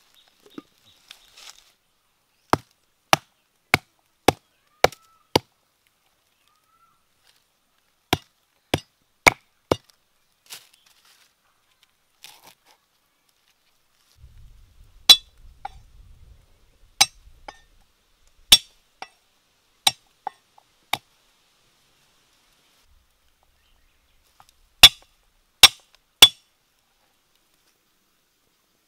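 A knife chopping on a wooden chopping board: single sharp strokes in short runs of three to six, a little under two a second, with pauses between the runs.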